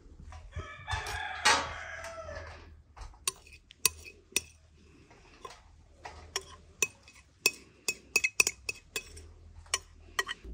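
A rooster crows once, a call of about two seconds near the start. Then a metal spoon clinks and scrapes many times against a glass bowl as crumbly bulgur dough is knocked out onto a metal tray.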